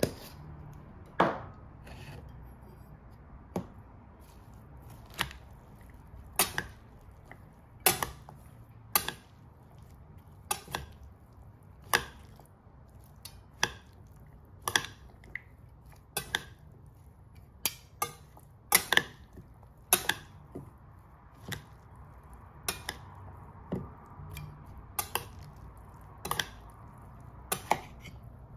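Metal spoon mixing a shredded cabbage, carrot and beetroot salad in a stainless steel bowl, knocking against the bowl's side in sharp clinks about once every second or so.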